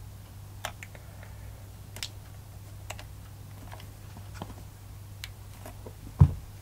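Scattered small plastic clicks and taps as hands work the battery leads and connector on an electric RC buggy, with one louder knock near the end, over a steady low hum.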